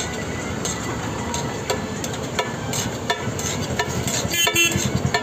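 Metal spatula scraping and clacking irregularly against a large iron griddle as a heap of fried rice is stirred and tossed, over a steady frying sizzle.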